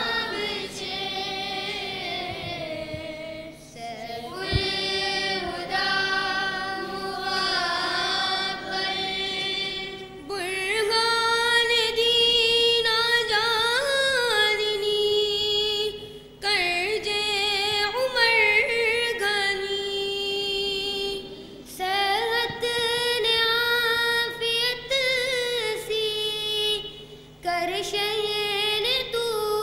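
Students singing a madeh, a Dawoodi Bohra devotional praise song, in long melodic phrases with gliding, held notes and short breaths between phrases.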